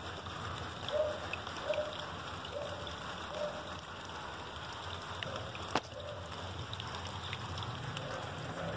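Steady rain falling, with a short low call repeating about once a second and one sharp click a little past the middle.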